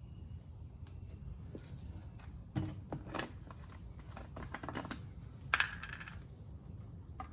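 Scattered light clicks and taps of hand work, with a few louder knocks about two and a half, three and five and a half seconds in.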